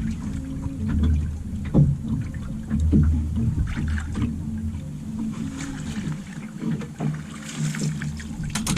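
Low steady hum of a small boat's motor running at idle, with scattered knocks and light splashing of water around the boat.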